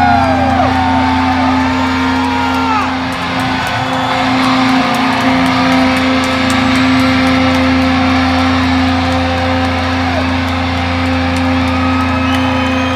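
Live rock band through a concert PA, heard from the crowd: a guitar chord held and ringing steadily, with voices calling out over it in the first three seconds.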